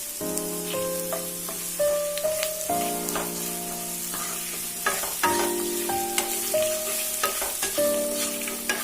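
Mushrooms sizzling in ghee in a kadai, stirred on a high flame with a spatula that clicks and scrapes against the pan. Background music with held notes plays along.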